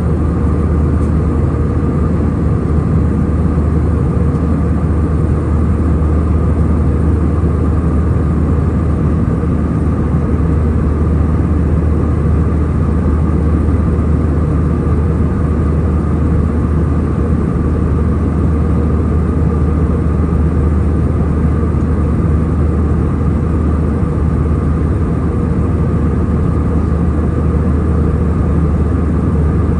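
Steady drone of an airliner cabin in flight, engine and airflow noise with a deep hum and fainter steady tones above it, unchanging throughout.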